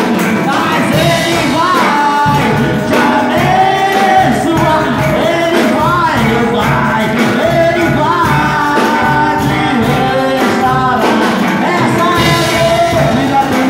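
A man sings a worship song into a microphone through the church sound system, over instrumental accompaniment with a steady beat.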